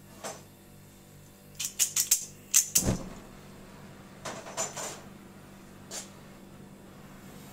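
Oxy-propane brazing torch being lit: a string of sharp metallic clicks and scrapes, with a low pop about three seconds in and a few more clicks after. A faint gas hiss starts to come up near the end.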